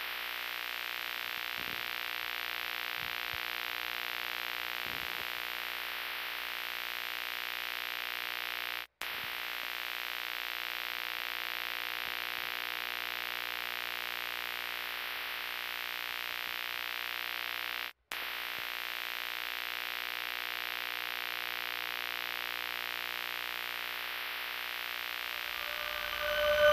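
Steady electronic drone of static hiss under a stack of held buzzing tones. It drops out for an instant twice, about nine seconds apart, and swells loud right at the end.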